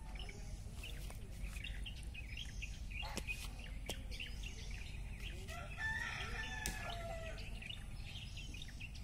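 Birds chirping, many short calls throughout, with a longer, lower call about six seconds in.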